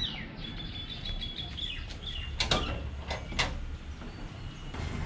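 Birds chirping, then two sharp metallic knocks about halfway through as a sheet-metal gate is unlatched and pushed open.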